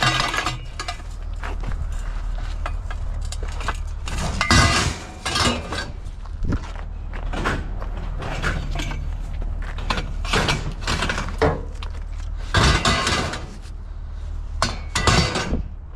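Scrap steel pieces being handled and loaded, with repeated metal clanks and rattles. The heaviest knocks come about four and a half, ten, twelve and a half and fifteen seconds in, over a steady low hum.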